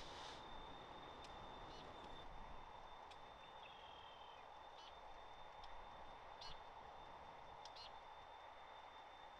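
Near silence: faint outdoor ambience with a few brief, faint bird chirps scattered through it and a thin, steady high tone.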